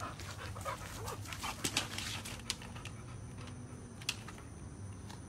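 A bulldog panting, with a few short whimpers. Sharp clicks and scuffs come through the first two seconds, and one more click about four seconds in.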